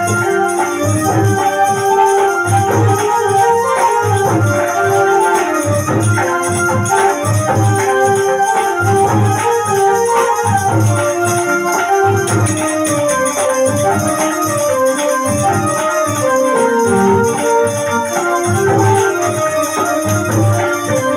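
Harmonium playing a devotional melody in held, reedy notes over a steady low drumbeat.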